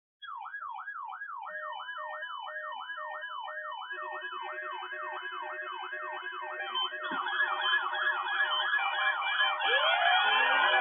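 Electronic siren yelping, its pitch rising and falling about three times a second. A low steady buzz joins about four seconds in, and near the end several more sirens layer in, making a jumble of overlapping wails and yelps that grows louder.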